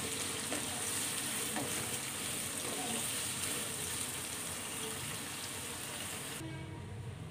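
Sliced onions sizzling as they fry in oil in a nonstick kadai while being stirred with a wooden spatula, cooking until they turn brown. The sizzle cuts off suddenly about six seconds in.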